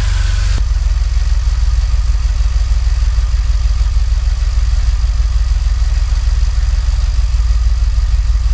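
DeLorean DMC-12's PRV V6 engine idling steadily with an even, low pulsing exhaust note, its exhaust leak and bad spark plug fixed. There is an abrupt change about half a second in.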